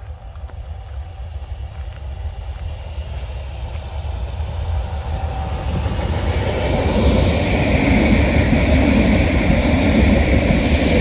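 Croatian Railways passenger multiple-unit train approaching and passing close by, growing steadily louder, with a steady high whine joining the rumble about two-thirds of the way in.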